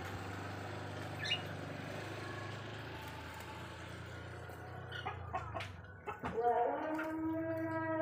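A few short, high chirps from a caged domestic canary over a steady low hum. In the last second and a half a louder, sustained pitched sound with many overtones comes in.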